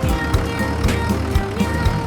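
Background music with a steady beat of low drum thumps, about four a second, under a melody that glides up and down in pitch.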